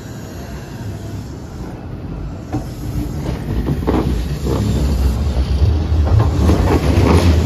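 Hanshin Railway 8000-series electric train pulling out and gathering speed, its running rumble growing steadily louder. From about two and a half seconds in, the wheels clack over the rail joints and points.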